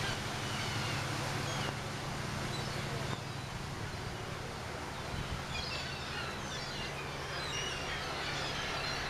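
A large flock of gulls calling over one another in many short, overlapping cries, which grow busier in the second half. A steady low engine hum sits underneath and drops away about three seconds in.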